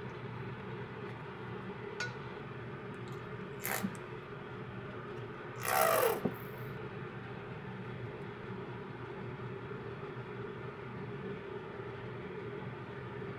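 A plastic squeeze bottle squirts sauce, giving a short sputtering squeal that falls in pitch about six seconds in. Before it come a faint click and a brief rustle, all over a steady low hum.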